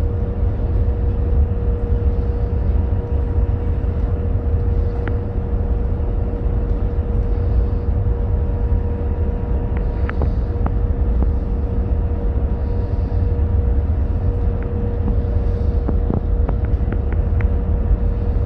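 The Freshwater-class ferry's pair of Daihatsu marine diesel engines running at reduced power as the ferry slows, heard on board as a steady low rumble with a constant hum. A few faint clicks come in the second half.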